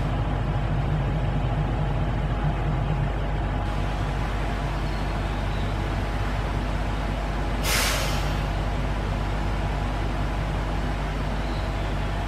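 JR Shikoku 1000 series diesel railcar's engine idling steadily as it stands at the platform, with one short burst of compressed-air hiss from its brakes about eight seconds in.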